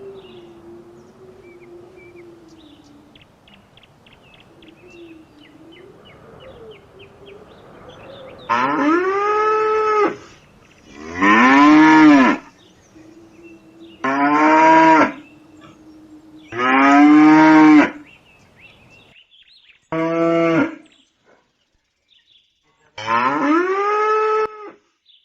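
Cows mooing: about a third of the way in, six loud, drawn-out moos begin, each rising and then falling in pitch, with short gaps between them.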